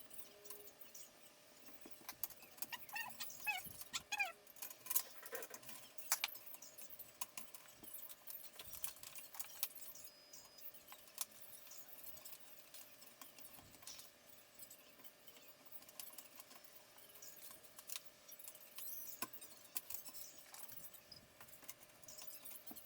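Faint, irregular clicks and light rattles, with a few short high squeaks about three to five seconds in, over a faint steady hum.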